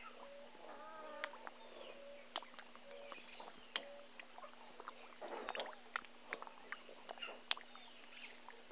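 Fish taking floating feed pellets at the water's surface: irregular sharp pops, smacks and slurps, busiest past the middle. A short, even note repeats about twice a second through the first few seconds.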